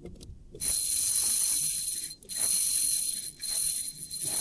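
Drag of an ultralight spinning reel buzzing in high-pitched bursts as a hooked fish runs and pulls line off against it, in three long runs with short pauses, the first lasting about a second and a half.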